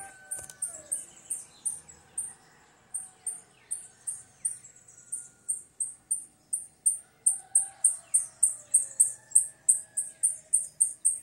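Repeated short, very high-pitched chirps in a steady rhythm, about three to four a second, growing louder and a little faster over the last few seconds, with faint lower whistling notes beneath.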